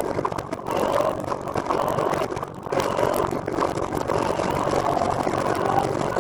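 Steady road noise from a recumbent trike on the move, its tyres rolling on pavement, with a faint hum that comes and goes.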